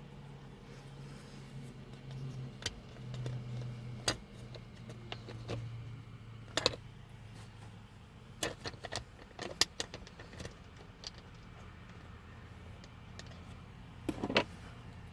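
Scattered clicks and light clatter of a replacement center console latch and its screws being handled and fitted into a Chevrolet Silverado's console, with a cluster of knocks near the end. A low steady hum runs underneath.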